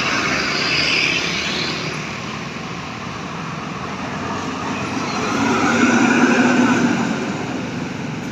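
Road traffic passing at speed: engine and tyre noise from a large vehicle going by, swelling to its loudest about five to seven seconds in.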